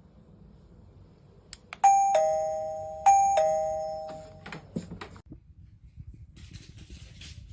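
XTU wireless doorbell chime sounding twice, each time a two-note ding-dong, a higher note dropping to a lower one, ringing out and fading. A couple of light clicks come just before the first chime.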